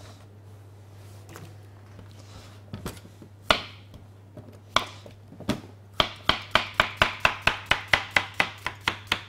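Chef's knife slicing a courgette into thin rounds on a chopping board: a few separate cuts about three to five seconds in, then a quick even run of chops, about four a second.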